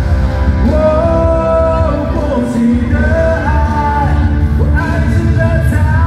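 Live pop-rock band playing through a concert PA with strong bass and drums. A voice sings a line of long held notes over it.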